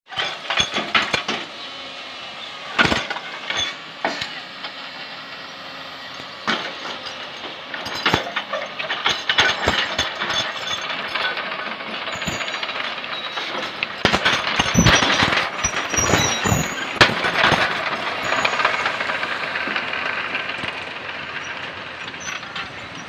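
Car moving over a rough dirt track, heard from inside the cabin: a steady rumble with many knocks and rattles, thickest about two thirds of the way through.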